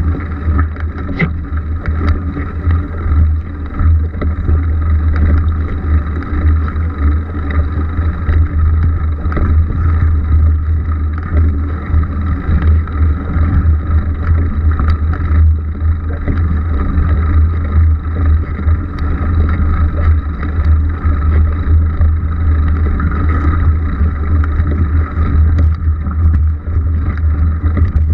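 Mountain bike riding over grass and dirt, recorded on an action camera: a steady low rumble of wind buffeting the microphone and of tyre and frame noise, with scattered small knocks from bumps in the ground.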